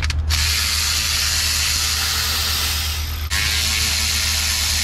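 Cordless electric ratchet running steadily as it backs out a valve cover bolt, stopping briefly and starting again about two-thirds of the way through, over a steady low hum.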